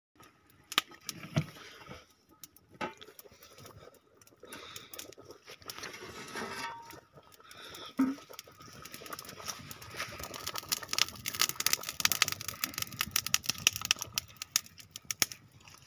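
Steel ladle and lid clinking and scraping against a large metal cooking pot of dal, with one louder clank about eight seconds in. Near the end the pot is stirred, giving a dense run of rapid metallic clicks.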